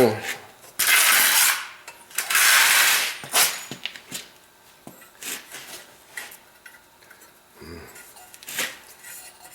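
Hand tools and metal parts being worked by hand as the front forks are removed from the steering head of a Kawasaki KLT200C: two long rasping scrapes in the first three seconds, then scattered clicks and knocks.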